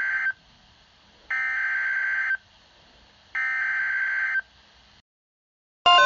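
Emergency Alert System SAME header on a NOAA Weather Radio broadcast: three bursts of buzzing data tones, each about a second long and a second apart, which signal that an emergency alert follows. Near the end a loud steady alert tone starts, with other tones stepping up and down over it.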